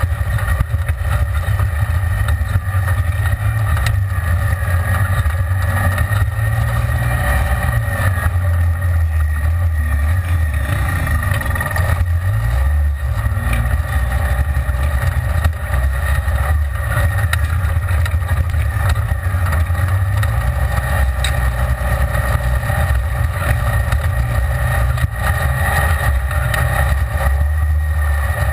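Side-by-side UTV's engine running steadily under way on a dirt trail, heard from inside the open cab as a low drone.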